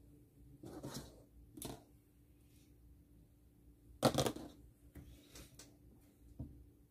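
Paintbrushes being picked up and set down on a desk mat: a few short knocks and rustles, the loudest about four seconds in.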